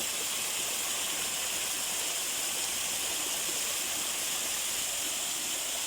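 Spring water pouring strongly from a rock, making a steady rushing hiss.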